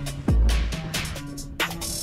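Background electronic music with a deep kick drum and quick hi-hats over held synth notes.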